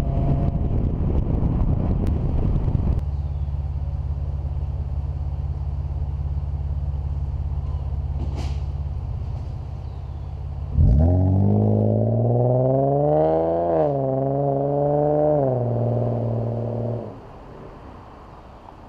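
2004 Nissan Maxima's 3.5-litre V6 heard through an RS Type 2.0 N1 cat-back exhaust. It runs steadily at first, then partway through is revved up sharply, dipping once before rising again and holding. It drops back and stops near the end.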